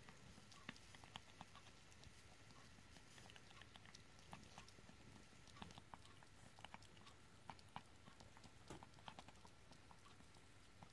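A kitten licking paste from a squeeze-tube cat treat held in a hand: faint, irregular little licking and smacking clicks, coming in quick runs at times.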